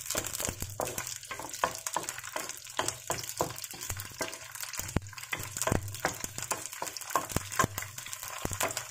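Red chilies, garlic, ginger and onion pieces frying in hot oil in a pan, sizzling with frequent irregular pops and crackles, while a wooden spatula stirs them.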